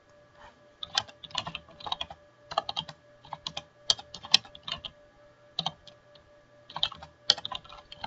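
Typing on a computer keyboard: bursts of quick keystrokes separated by short pauses.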